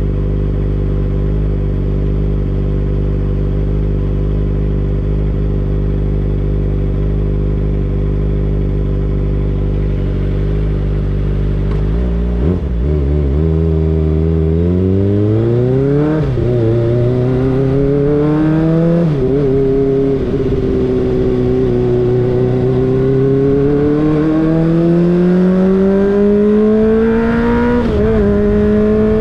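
Kawasaki Ninja ZX-25R's 249 cc inline-four engine idling steadily, then pulling away. Engine pitch rises, drops sharply at two quick upshifts, then climbs gradually as the bike gains speed.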